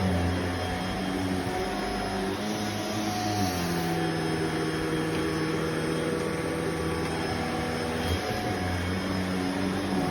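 Vacuum cleaner running, a steady motor hum with airflow noise; its note drops slightly about a third of the way in and rises again near the end as the load on the motor changes.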